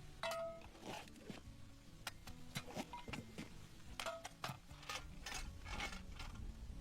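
A run of small clicks, taps and brief ringing clinks, irregular and fairly quiet, from objects being handled, over faint soft background music.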